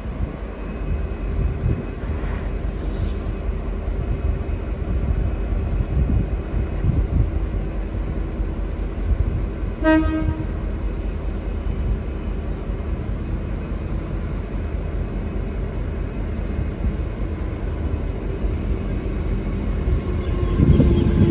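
V/Line N class diesel-electric locomotive running with a steady low rumble and hum. About halfway through comes one short horn toot, and the rumble grows louder near the end.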